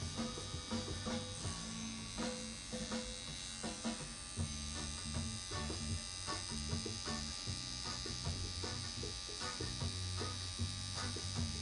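Electric tattoo machine fitted with a 9-round-liner needle, buzzing steadily as it lines skin.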